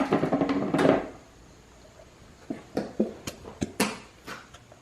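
A brief burst of voice at the start. Then, after a short pause, a run of light, irregular clicks and knocks from things being handled on a tabletop.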